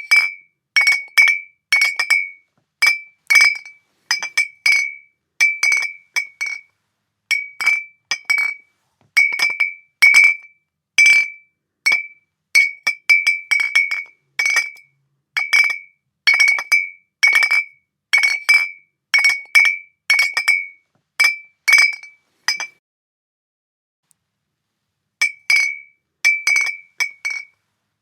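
Glass bottles clinking against each other, each strike a short clear clink with the same high ring, coming unevenly about once or twice a second. A pause of about two and a half seconds falls near the end.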